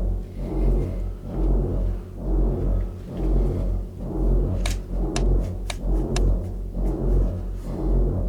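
Suspense film score: a low, droning chord that swells and fades in a steady throb about every two-thirds of a second, with a few sharp clicks about halfway through.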